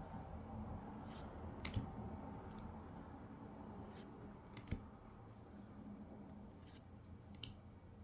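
Trading cards being handled and flipped through, giving about half a dozen faint clicks and taps. A faint steady high-pitched tone runs underneath.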